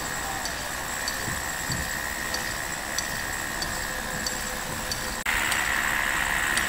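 Outdoor ambience: a steady hiss with a thin, steady high tone and faint, evenly spaced high ticks, stepping up in loudness at a cut about five seconds in.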